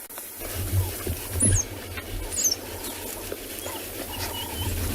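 African wild dogs squabbling over food, giving a few short high-pitched squeaks and whines, over a low rumble.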